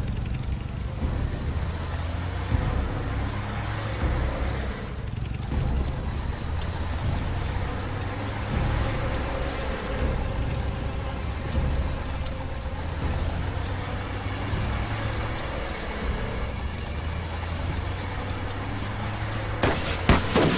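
Engine of a moving motor vehicle running steadily, a motorcycle with sidecar among the convoy. A few sharp cracks come near the end.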